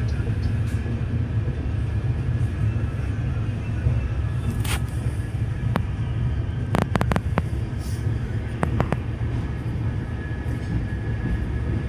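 Passenger train running with a steady low rumble, and a handful of sharp clacks between about five and nine seconds in.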